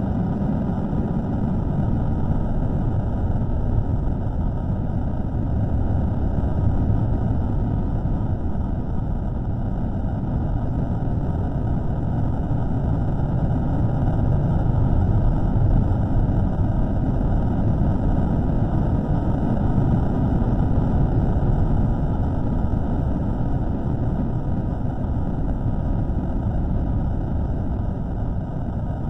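Steady low rumbling noise with no clear tone or rhythm, from a microphone recording slowed down several times.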